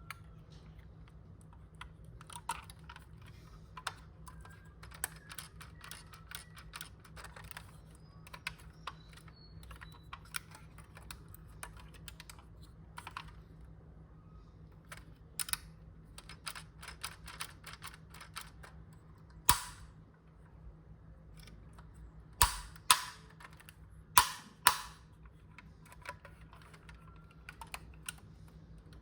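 Hands handling a diecast model car and its box and plastic packaging: scattered small clicks and taps, with a few louder sharp clacks about two-thirds of the way through. A faint steady low hum lies underneath.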